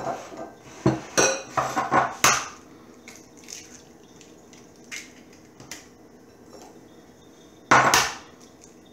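Eggs being cracked on the rim of glass bowls: a quick run of sharp taps and clinks of shell against glass in the first couple of seconds, a few faint clicks, then a louder knock of shell and glass near the end.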